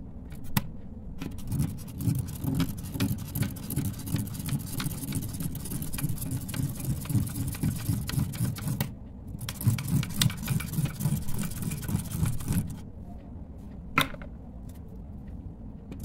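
Plastic spirograph design ruler being turned by a pen: the toothed disc rolling inside the geared ring gives a low, uneven rattling rub with many small clicks of the plastic teeth, along with the pen scratching on the paper. It eases off briefly twice, and there is one sharp click near the end.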